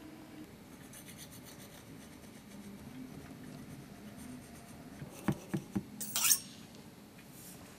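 Quiet food-preparation handling sounds: soft rubbing and scraping, then three light knocks a little over five seconds in, followed at once by a short rustle.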